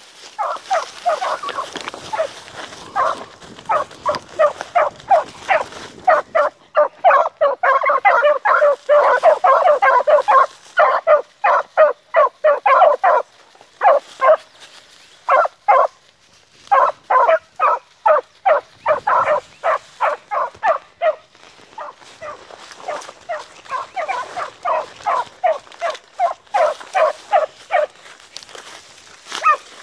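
Two young beagles giving tongue in fast, repeated chop barks while running a marsh rabbit's scent trail, a sign they are on the line. The barking comes in quick runs, breaks off briefly a few times, and stops near the end.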